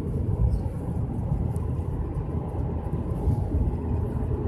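Steady low rumble of a vehicle driving down a mountain road, heard from inside the cabin: engine and tyre noise.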